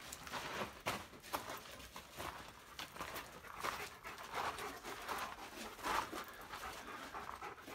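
A dog panting in a quick, irregular run of short breaths.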